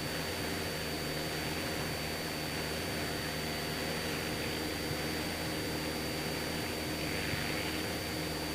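Cessna 172SP's four-cylinder Lycoming engine and propeller droning steadily in the cabin, holding constant power, with a thin steady high-pitched whine over it.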